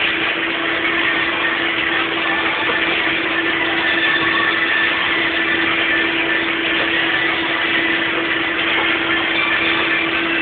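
Plastic bag-making machine running steadily, a constant mechanical hum with a steady low tone and no change in pace.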